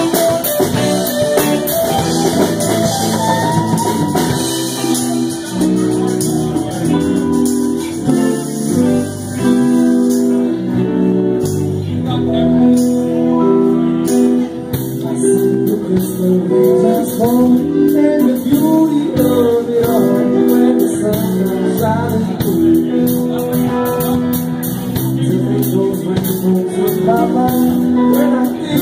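Live band playing a slow soul song, with electric guitar under a man singing into a microphone.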